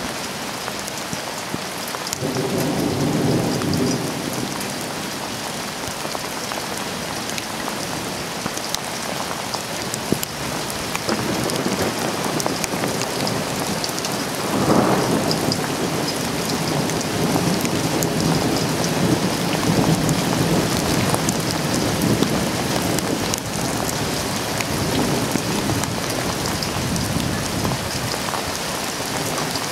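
Steady heavy rain hissing down, with thunder rumbling: a short rumble about two seconds in, then a long rolling peal that builds from about eleven seconds, is loudest around fifteen seconds and slowly dies away near the end.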